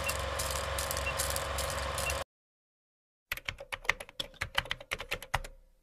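Film-countdown sound effect: a steady projector-like whir with a faint short beep about once a second, cutting off suddenly about two seconds in. After a second's silence, a fast run of typewriter key clicks, about eight a second, as the on-screen title types out.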